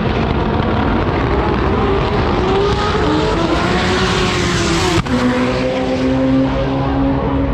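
Drag-racing car running hard down the strip and passing, its engine note falling in pitch as it goes by. After a sharp click about five seconds in, an engine note holds steady.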